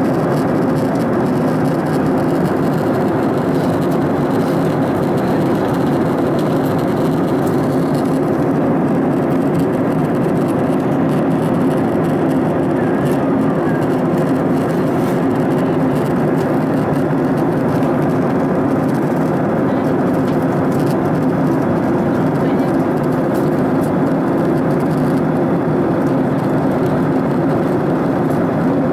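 Steady jet airliner cabin noise in flight: the constant drone of the engines and airflow heard from a window seat, unchanging in level.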